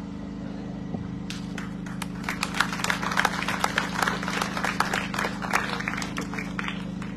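Audience applauding: scattered hand claps that build about a second in, are strongest in the middle and thin out near the end, over a steady low hum.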